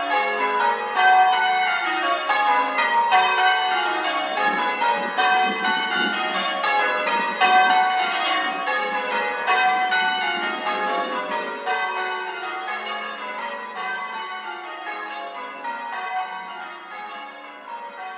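Church bells ringing, many bells at different pitches struck in quick succession, growing steadily fainter over the last six seconds or so. The low end is thin, the bass filtered out against wind.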